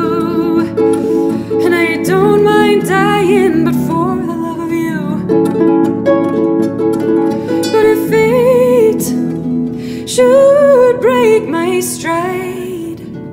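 Celtic harp playing, its plucked strings sounding a steady accompaniment of low and middle notes, with a wavering melody line held above it.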